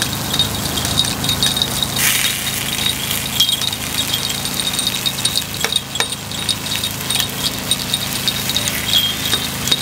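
Light metallic clicking and clinking of takoyaki picks against the cast-iron takoyaki grill pan, many small taps at an irregular pace, over a steady low hum.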